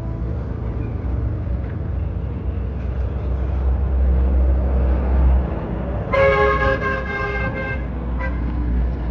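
Road traffic rumbling, with a vehicle horn sounding for nearly two seconds about six seconds in and a short toot just after.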